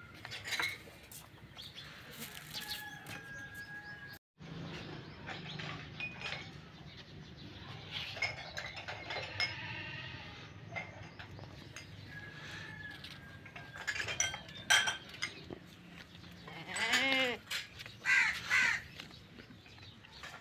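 Goat bleating, with one clear long call near the end, while crows caw around it.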